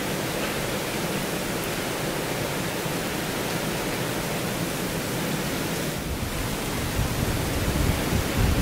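Steady hiss of winter rain falling on snow and a wet deck railing. From about six or seven seconds in, a low uneven rumble of wind on the microphone joins it.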